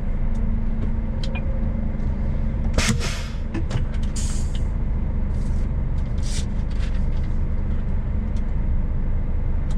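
Scania heavy-truck diesel engine idling steadily, with two short hisses of air a little under three and a little over four seconds in.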